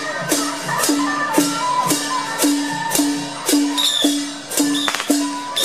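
Procession music with a steady beat of struck percussion, about two strokes a second, each stroke leaving a low ringing tone under a higher-pitched melody.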